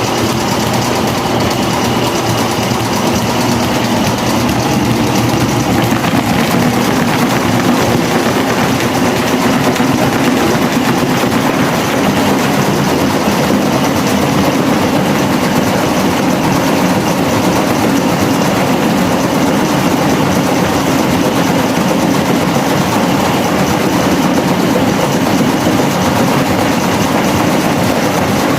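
Electric fan running steadily, a continuous whir of motor and spinning blades.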